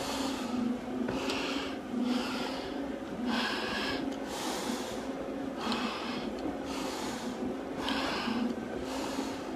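Heavy, fast breathing inside a firefighter's SCBA facepiece, about one breath a second: hard breathing from exertion after a long stair climb. A steady low hum runs underneath.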